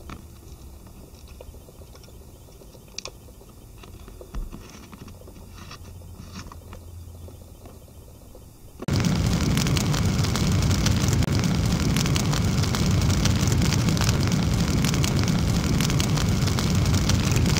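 A few faint clicks and handling sounds, then about nine seconds in a sudden loud, steady rushing noise.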